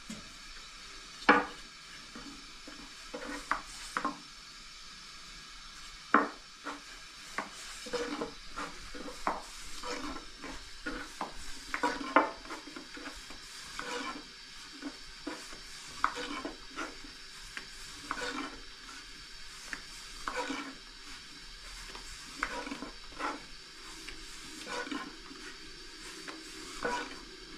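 Long thin wooden rolling pin rolling out thin flatbread dough on a round wooden board, with irregular wooden clacks and knocks as the pin is rolled and shifted, a few much louder than the rest.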